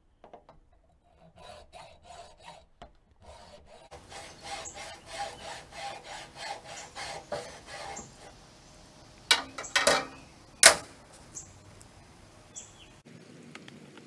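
Hacksaw cutting through a raised-bed stacking stake in repeated back-and-forth strokes, about three a second. Then several loud, sharp knocks a little past halfway.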